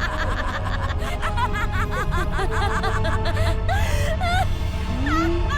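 Cartoon soundtrack music with a character laughing over it.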